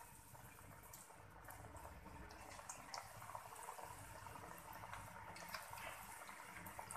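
Cabbage and gram-flour fritters frying in hot oil in a kadhai: a faint, steady sizzle with small crackles, growing a little louder after about a second and a half.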